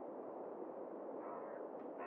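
Steady light wind hiss, with a faint cawing call of a crow-type bird (corvid) starting about a second in.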